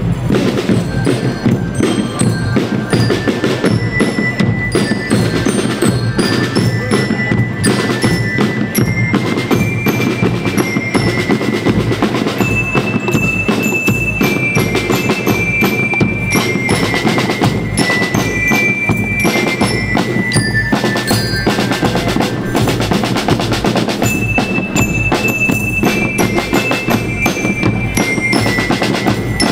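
Peruvian school rhythm band (banda rítmica) playing: snare and bass drums keep a rapid, steady beat under a ringing melody on metal bell lyres.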